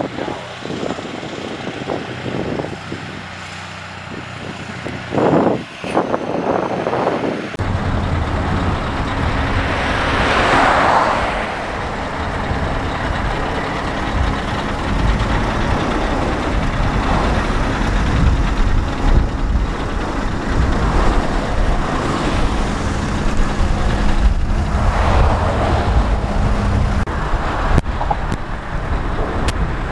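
Scania V8 truck engine running as the tractor unit drives past on a motorway, amid road traffic and the tyre noise of passing cars. Two vehicles swell past and fade, one about ten seconds in and one near twenty-five seconds.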